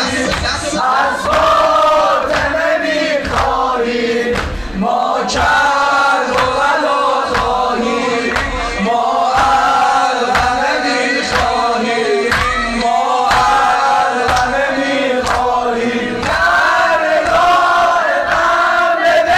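A crowd of mourners chanting a Shia noha (latmiya) together in unison, over a steady beat of low thumps typical of latmiya chest-beating.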